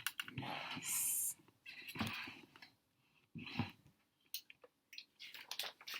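Paper rustling as the pages of a picture book are handled and turned, with a few short soft sounds and light ticks after it.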